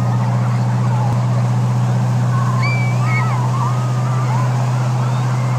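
Towing motorboat's engine running steadily under load, a constant low drone over the rush of its wake. Faint high wavering calls come over it around the middle.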